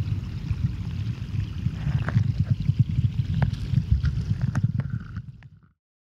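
Muffled, churning low rumble of river current as heard by a submerged camera, with a few sharp ticks. It fades out about five and a half seconds in, leaving silence.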